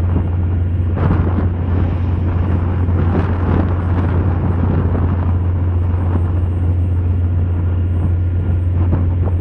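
Steady low engine drone of a bulk carrier moving slowly into a canal lock, with an uneven rushing noise over it that swells in the first few seconds.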